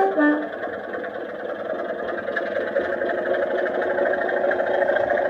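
Sound-fitted Heljan OO gauge Class 25 diesel locomotive model: its decoder's two-tone horn sounds briefly right at the start, a high note then a low one. Then the recorded Sulzer diesel engine sound runs steadily and grows louder, played through the model's loudspeaker.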